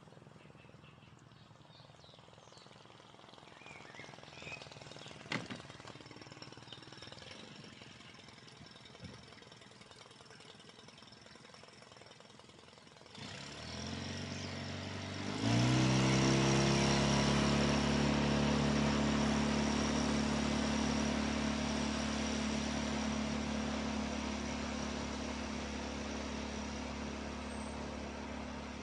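Small boat's outboard motor opened up about halfway through: its pitch climbs over a couple of seconds into a loud, steady drone as the boat speeds off. The drone then slowly fades as the boat moves away.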